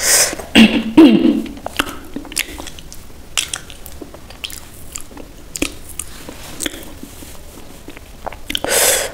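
Close-miked eating mouth sounds: chewing and licking food off the fingers, scattered wet clicks and smacks. There are a couple of louder smacks about a second in and a short breathy rush near the end.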